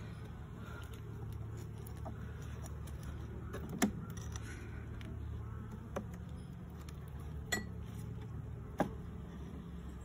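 Honeybee colony buzzing steadily in an opened hive, with a few sharp clicks and knocks of a hive tool and wooden hive parts being worked apart.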